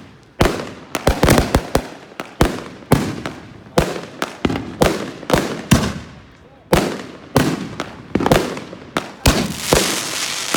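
Fireworks going off in a rapid, irregular string of sharp bangs, often several a second, each with a short echoing tail. The bangs run together into a denser crackle near the end.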